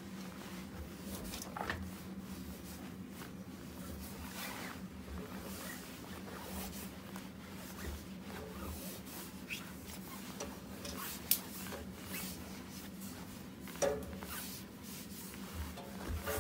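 Nortec Primus P6 commercial washing machine running a wash: a steady motor hum with the load tumbling in the drum, giving irregular soft thuds, swishing and scattered small clicks.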